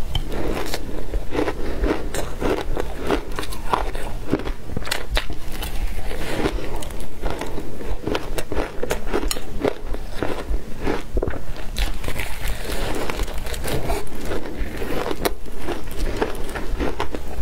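A mouthful of shaved ice being bitten and chewed, with many sharp crunches and cracks as the ice breaks between the teeth.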